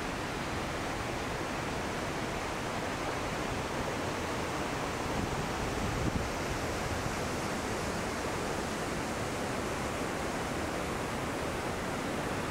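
Steady rushing water, an even hiss-like roar with no rhythm. A brief low thump about six seconds in.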